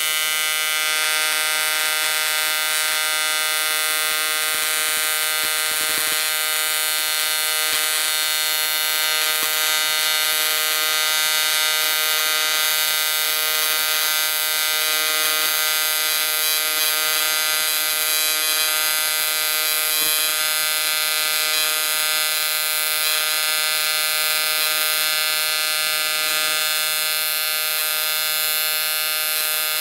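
AC TIG welding arc on aluminum: a steady electric buzz, held without a break while the bead is laid.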